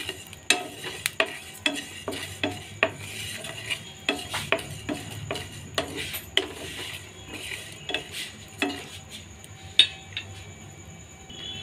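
Whole spices (fennel, cumin, carom and fenugreek seeds) dry-roasting in a pan, stirred with a spatula that scrapes and clicks against the pan in irregular strokes, with one sharper knock about ten seconds in. The seeds have begun to crackle, the sign that the roast is nearly done.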